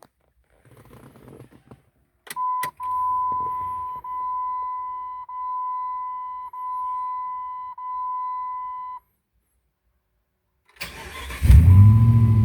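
Two sharp clicks, then a dashboard warning chime sounding in about five long beeps. After a short pause, the 1999 Jeep Grand Cherokee WJ's 4.7 Power Tech V8 cranks briefly and starts, flaring in revs as it catches, then running loud.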